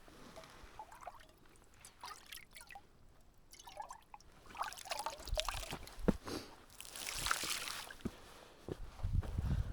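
Water poured and splashing into a cooking pot in a couple of short runs, with scattered clinks and knocks as the pot is handled.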